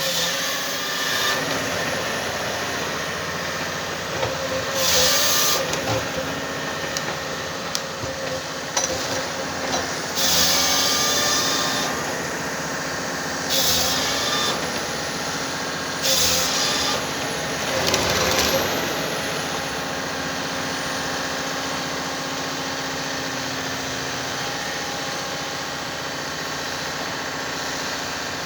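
Komatsu 931 XC forestry harvester running steadily with its engine and hydraulic whine, broken by about five short loud rushes of noise as the C144 harvester head works the timber. It settles to a steady run near the end.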